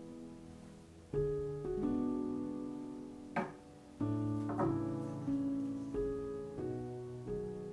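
Background music: a slow piano piece, with soft chords struck about once a second, each ringing on and fading.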